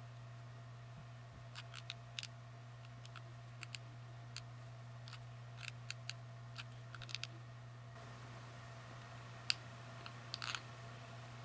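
Scattered small clicks and taps of hand-crafting work on paper towels, irregular and a few seconds apart in small clusters, with one sharper tap about nine and a half seconds in. A steady low hum lies under them.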